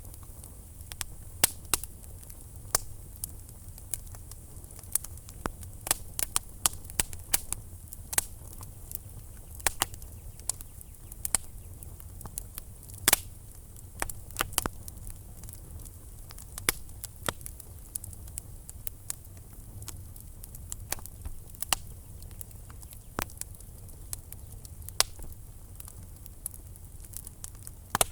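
Wood fire burning in a fireplace, crackling with irregular sharp pops a few times a second over a steady low rumble. A louder pop comes about halfway through.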